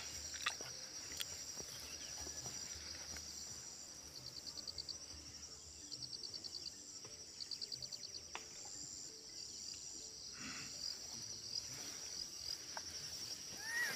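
Steady high-pitched chorus of insects, with three short rapid trills between about four and eight seconds in.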